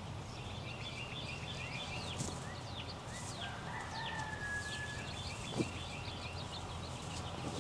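A rooster crowing once, a long level call starting about three and a half seconds in, over small birds chirping and calling. A single sharp knock about five and a half seconds in.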